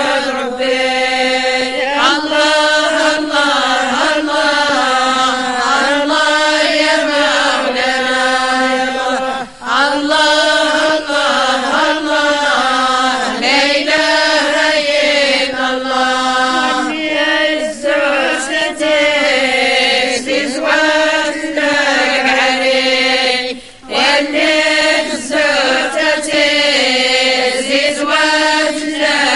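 A group of women chanting a devotional praise song (madih) together in one melody, voices only with no instruments, with two short breaks between phrases.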